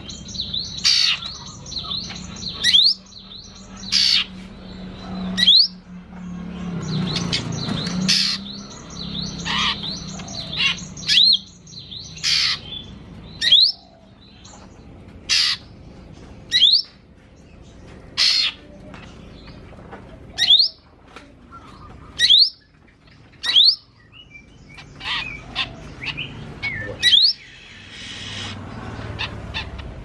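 Caged cucak ijo mini, a small green leafbird, singing a string of short, loud chips and quick rising whistles, one every second or two. Its song is stuffed with learned imitations of other birds' calls.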